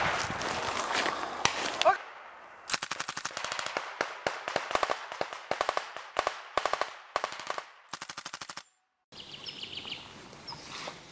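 Belt-fed machine gun firing blanks in repeated short bursts of rapid shots, with rifle shots around it. Near the end the firing gives way to birds chirping and one more shot.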